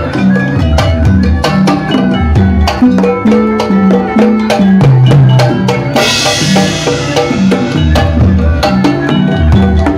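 Sundanese kendang drums playing fast Jaipong rhythms, with quick sharp strokes over deep drum notes that step up and down, set against gamelan music. A cymbal crashes about six seconds in.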